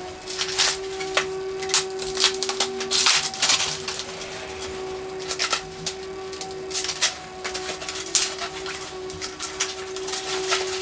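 Plastic packaging being cut with scissors and pulled off a roof-rack bar: irregular crinkling and rustling with small snips.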